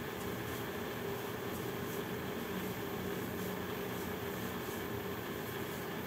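Steady mechanical hum with a faint low drone, with a few soft, faint squelches of hands kneading raw kibbeh dough of ground beef and bulgur.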